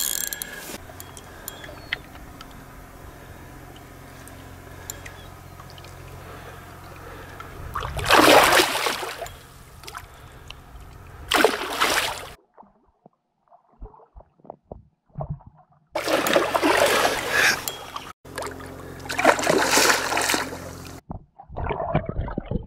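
Hooked lake trout thrashing and splashing at the surface in shallow water, in several loud bursts. Between the bursts it is quieter, and for a few seconds in the middle almost silent.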